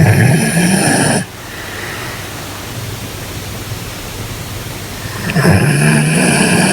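A sleeping dog snoring: two long snores about five seconds apart, one at the start and one near the end, over a steady background hiss.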